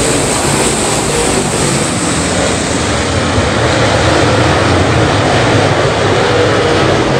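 A pack of topless dirt late model race cars running laps together, their engines a loud, steady, dense drone.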